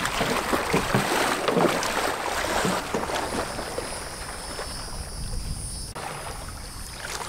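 Shallow river water sloshing and splashing around the legs of someone wading in chest waders, louder for the first few seconds and then quieter.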